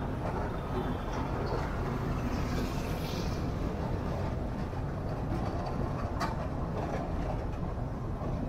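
A moving car's steady road and engine noise, tyres running on the road surface, with one sharp click about six seconds in.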